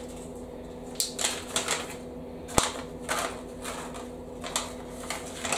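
Paper seed packets rustling and crinkling in the hands as they are sorted through and one is opened, in short irregular strokes with one sharp click about two and a half seconds in. A steady low hum runs underneath.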